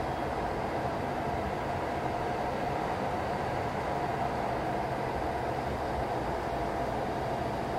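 Steady low rumble with a faint, even hum, unchanging throughout.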